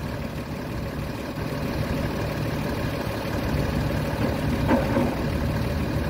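Diesel engines of an excavator and a bulldozer running steadily as they work, heard as a low, even drone.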